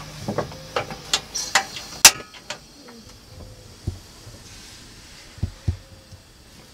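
Sharp clicks and light knocks of a pot being handled on a portable gas camping stove. They are thickest in the first two and a half seconds, with the loudest about two seconds in, then a few scattered knocks.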